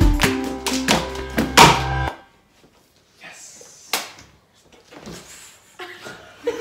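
Cup-game rhythm: plastic bottles tapped and knocked on a countertop along with music, which cuts off about two seconds in. A sharp hand slap of a high-five follows a couple of seconds later, then faint voices.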